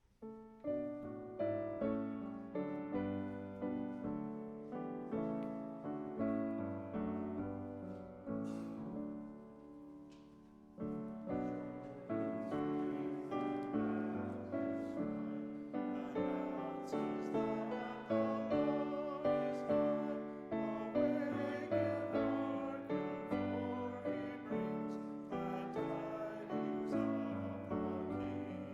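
Piano playing a slow hymn tune in chords, each note struck and fading. The playing pauses briefly about ten seconds in, then resumes fuller.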